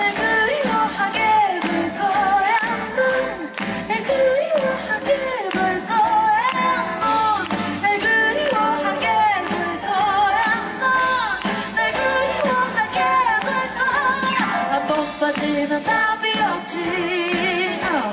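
Female vocalist scat-singing quick wordless runs into a microphone over a live band, with light percussion ticking along.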